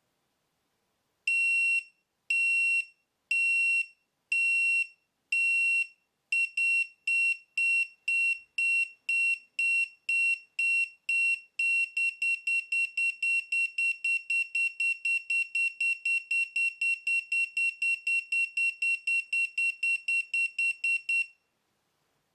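PowerFLARM Flex collision-warning buzzer beeping at one high pitch. The beeps quicken in three steps, from about one a second to about two, then about four, as simulated traffic closes in and the alarm escalates toward the urgent level, then stop suddenly.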